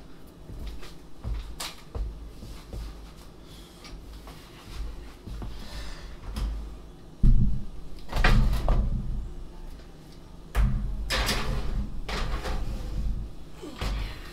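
Oven door of a gas range pulled open with a sudden thud about halfway through, a baking tray holding a springform pan clattering in onto the rack, and the door shut with another thud; small clicks and rustles of handling come first.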